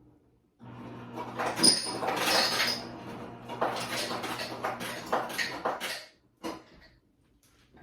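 Ice cubes clattering and clinking into a cup for about five seconds, over a steady low hum that starts with them and stops a little before they do, followed by a couple of single knocks.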